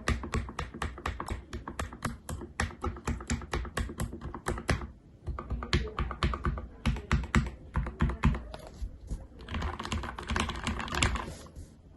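Keychron K2 mechanical keyboard being typed on quickly, a fast run of key clacks at several a second with a short pause about five seconds in. It is a sound test of the board just after its stabilizers were lubed with dielectric grease and Krytox 205g0.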